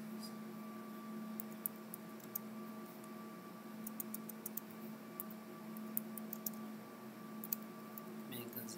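Computer keyboard keys clicking in short, irregular runs as a few words are typed, over a steady faint hum.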